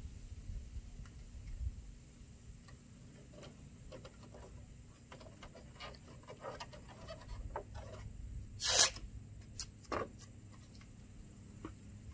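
Blue painter's tape being handled and pressed down, heard as scattered small crackles and taps. One loud, short ripping sound comes about nine seconds in, with a smaller one a second later, as tape is pulled from the roll.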